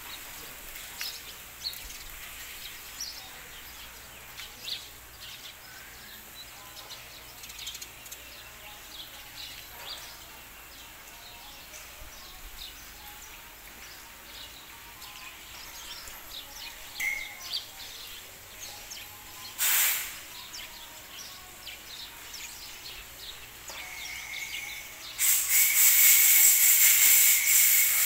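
Faint outdoor ambience with scattered small bird chirps and one sharp noise about two-thirds of the way through. Near the end a loud, steady hiss comes in suddenly, with a thin high whistle in it.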